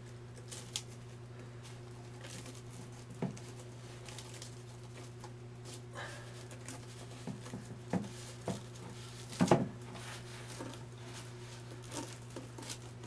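Hands screwing a Kirby vacuum's plastic bag adapter onto its ribbed rubber fill tube inside the cloth outer bag: scattered light clicks, knocks and rustles, the loudest a short cluster of knocks about nine and a half seconds in, over a steady low hum.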